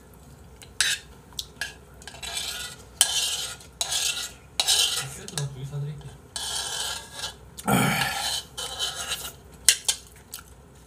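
A metal spoon scraping and clinking against a bowl in quick, irregular strokes as the last of the ramyeon, rice and broth is scooped up, with slurping from the tipped bowl.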